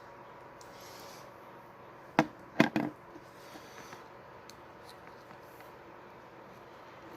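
Three sharp knocks close together about two seconds in, like a small hard object set down or tapped on a surface, over a faint steady hum.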